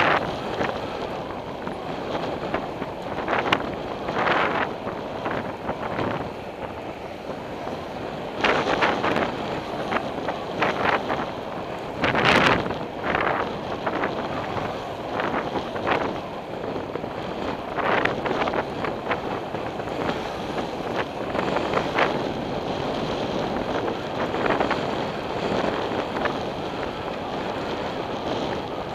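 Wind buffeting the microphone of a camera on a moving bicycle, over steady road noise, with many short surges in level and a sharp knock about twelve seconds in.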